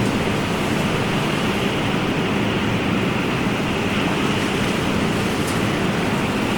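Ocean surf: a steady, even rush of waves breaking and washing.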